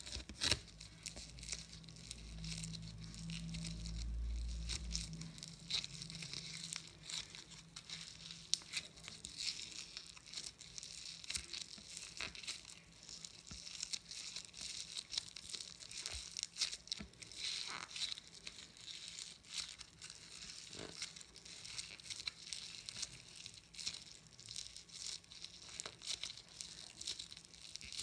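Crunchy slime being squeezed and worked by hand, giving a dense, irregular run of small crackles and pops.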